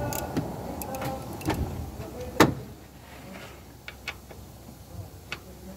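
Hand tools working on engine bolts: a ratchet and socket clicking and knocking against metal, with one sharp metallic click about two and a half seconds in, then a few scattered light ticks.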